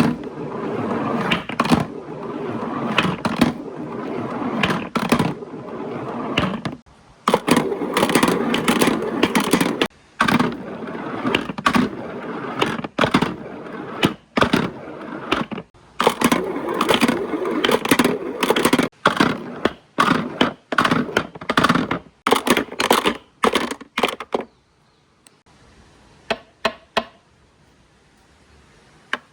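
Marbles rolling and clattering down a marble run track, with many sharp clicks and knocks as they drop and hit the track pieces. The rolling stops about 24 seconds in, followed by a few last clicks.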